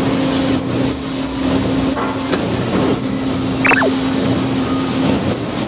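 Scrap-processing machinery running in a factory hall: a steady mechanical hum and drone with scattered faint clicks, and a short squeal that falls in pitch a little past the middle.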